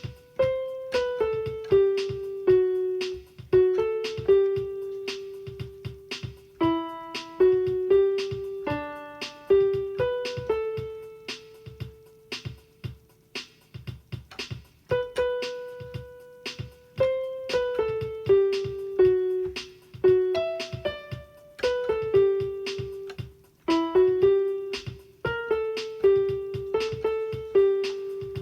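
Piano playing a simple melody, one struck note at a time, each ringing and fading away, with a few longer held notes.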